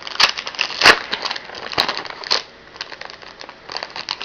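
Foil wrapper of an Upper Deck MVP hockey card pack crinkling and crackling as it is handled, with a few sharp crackles in the first two and a half seconds, the loudest about a second in, then softer rustling.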